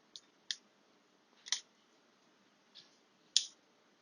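Pieces of cinnamon bark being handled and added to a pan of heating water: five or so sharp, light clicks, spaced irregularly.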